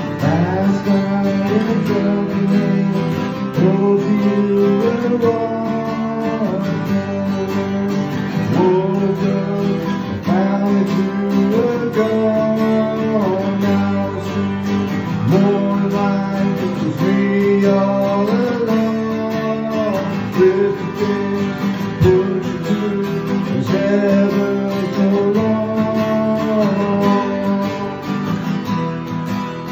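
Two acoustic guitars playing a song together, strumming chords.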